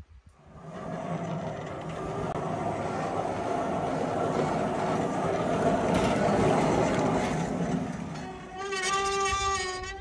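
Wood-Mizer LT15 portable sawmill running, its engine and band blade sawing through a log: a steady mechanical noise that builds, peaks and eases. About a second and a half before the end, a wavering pitched whine rises over it.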